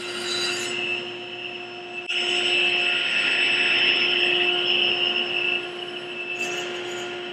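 Sliding table saw running steadily, then crosscutting a wooden leg blank to length: the sound grows louder and harsher about two seconds in and eases back to the plain running hum a little over three seconds later.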